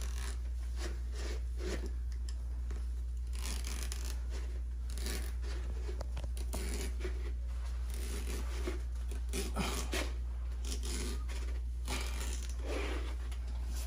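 Utility-knife blade slicing through grasscloth wallpaper into an inside corner, in a series of short, irregular cutting strokes, over a steady low hum.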